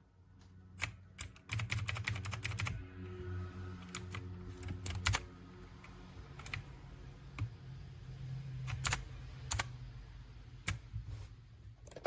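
Mechanical keyboard with brown switches being typed on: a quick run of keystrokes about a second and a half in, then scattered single key presses.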